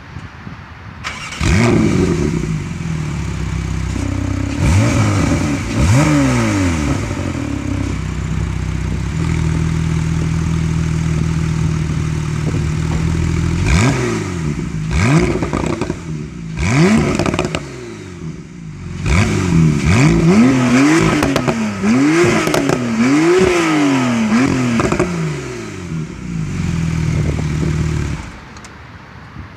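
Porsche 911 Targa 4S flat-six engine starting up, idling and being revved in short blips, with a quick run of repeated revs in the second half, then switched off near the end.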